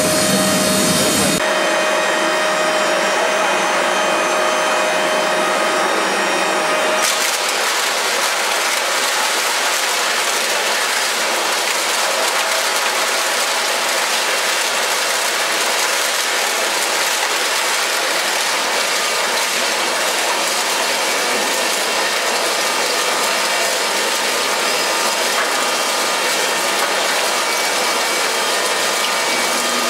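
3R 15-320 twin-shaft shredder running, its hooked cutter discs grinding and tearing through scrap in a dense, unbroken crunching clatter. A steady whine runs under it for the first seven seconds, and the sound changes abruptly about a second and a half in and again around seven seconds.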